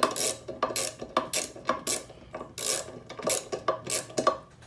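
Hand driver turning the screw in a loose frying pan handle: about a dozen short rasping metal strokes, roughly three a second, stopping just before the end. The screw may be jumping its threads, typical of a stripped screw hole.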